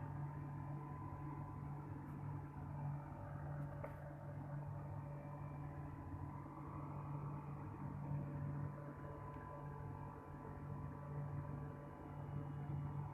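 A steady low electrical hum with a few faint higher whining tones, unchanging throughout.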